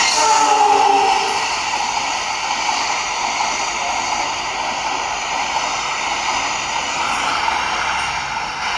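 The tail of a CC 206 diesel-electric locomotive's horn blast fades out in the first second. A steady rushing noise of the train running past follows.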